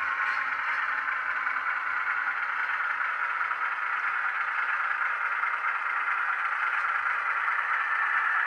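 Model Ruston 48DS diesel shunter's DCC sound decoder playing its diesel engine sound through the small onboard speaker as the locomotive runs, a steady, even running sound.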